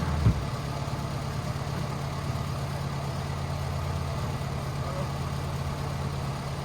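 A motor vehicle's engine idling steadily at a low, even pitch, with a single knock about a third of a second in.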